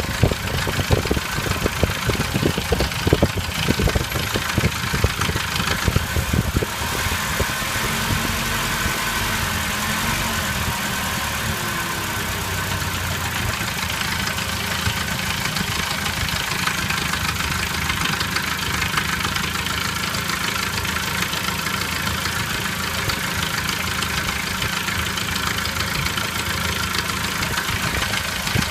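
ZMZ-409 2.7-litre inline-four petrol engine idling with a knock. It is choppier and more uneven for the first several seconds, then runs steadily.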